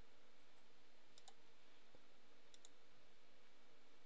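Computer mouse clicking faintly: two pairs of quick clicks about a second and a half apart, over a low steady hiss.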